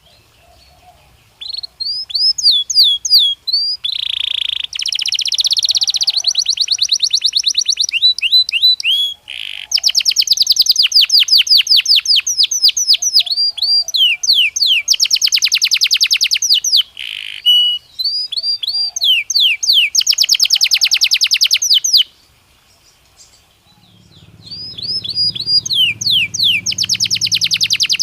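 Belgian canary singing: long phrases of fast trills and repeated swooping notes. The song breaks off for a moment about three-quarters of the way through, then starts again.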